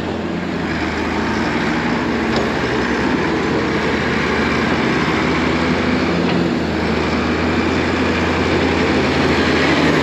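Diesel engines of two Massey Ferguson tractors running steadily as they push chopped corn silage on the bunk, one driving close by into the pile.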